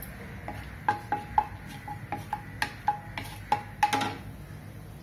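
Wooden spatula knocking and scraping against a nonstick kadai while stirring whole spices frying in oil and ghee. About a dozen sharp taps, each with a short ring from the pan, run from about a second in to about four seconds in.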